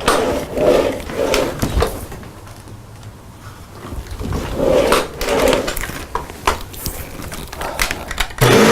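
Scattered clicks and knocks from handling the plastic vacuum cleaner, then near the end the Dyson DC65's motor is switched on and starts spinning up, its whine rising. It is being run as a test after a power cord replacement.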